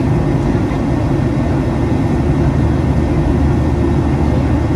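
Steady, loud, low rumble of a Boeing 737-800's CFM56-7B jet engines, heard from inside the passenger cabin.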